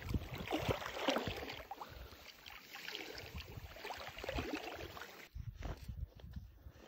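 A hunting laika splashing and paddling through shallow water, with irregular sloshing splashes; about five seconds in the splashing gives way to quieter, sparser water sounds.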